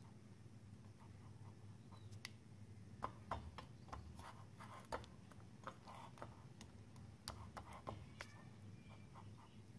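Faint scraping and irregular soft clicks of a silicone spatula stirring a thick starch-and-milk paste against the sides of a stainless steel pot, over a low steady hum. The clicks are thickest in the middle stretch.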